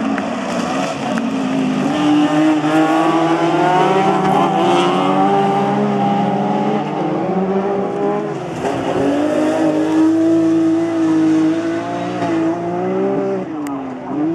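Rallycross cars' engines running hard at high revs, the pitch climbing and falling as they change gear and slide through the corners, with a drop in revs about eight seconds in.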